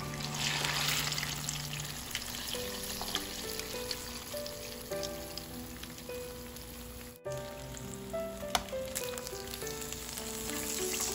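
Turon, banana-and-jackfruit spring rolls in lumpia wrappers, sizzling steadily as they deep-fry in hot cooking oil, over soft background music.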